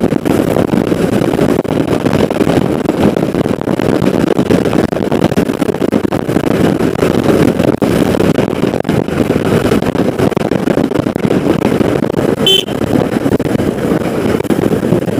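KTM 250 Adventure's single-cylinder engine running at a steady cruise, buried in heavy wind rush on the microphone. A short horn beep about twelve seconds in.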